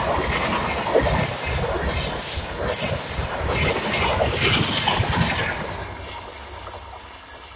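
A train running past on the track, a dense steady rumble of wheels on rails with scattered clicks. The noise dies away from about six seconds in as the train moves off.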